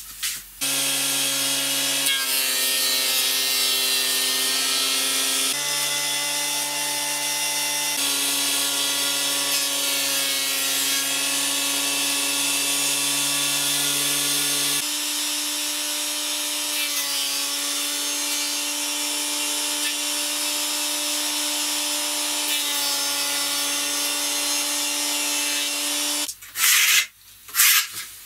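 Electric thickness planer running and planing wood: a steady motor whine over the rough rasp of the cutterhead on the boards, stepping in pitch a few times. Near the end it stops and gives way to knocks and clatter of wood being handled.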